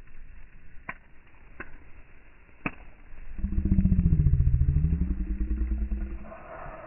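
A few sharp pops from the burning wood fire, then a motor engine heard loudly for about three seconds, its pitch dipping and rising again before it fades.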